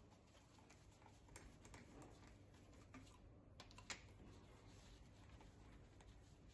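Near silence: room tone with a few faint clicks and light handling knocks from a compression tester's hose being worked in a spark-plug hole.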